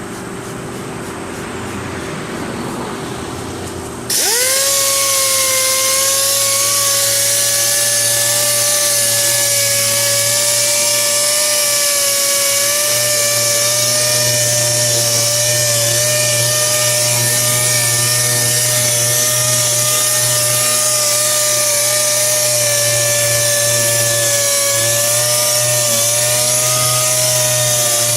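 Dual-action (DA) sander switched on about four seconds in, spinning up quickly to a steady high whine with a strong hiss, wet sanding car paint with 1500-grit paper. Its pitch dips briefly near the end.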